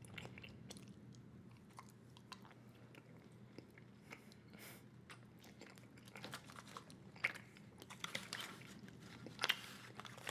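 A large mouthful of bubblegum being chewed close to the microphone: wet, irregular smacking clicks, with a few louder smacks in the second half.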